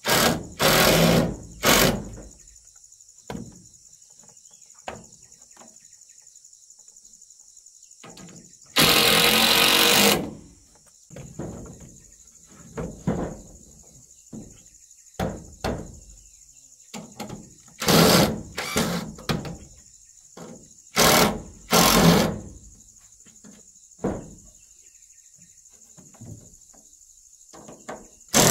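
Cordless drill driving screws into wooden wall planks in a series of short bursts, with one longer run about nine seconds in. A steady high drone of insects runs behind.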